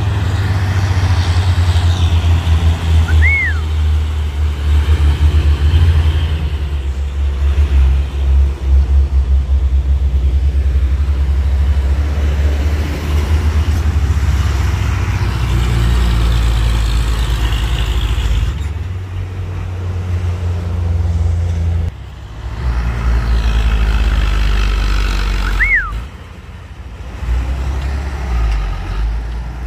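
Heavy diesel truck engines running with a deep, pulsing low rumble, the sound shifting abruptly a few times. Two brief high chirps, about three seconds in and near the end.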